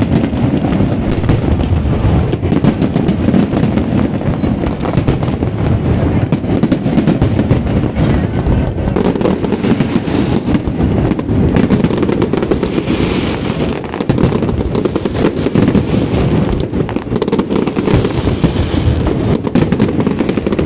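Fireworks display going off in a continuous barrage: dense, rapid bangs and crackling from many shells bursting overhead, with no let-up.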